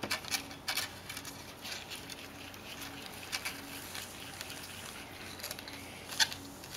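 Faint crinkling, rustling and light ticks of a paper sachet of doughnut-mix powder being handled and tipped into a small plastic tray.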